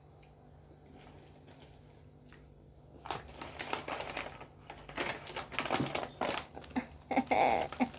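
Snack packaging crinkling and rustling in irregular bursts, starting about three seconds in after a quiet stretch.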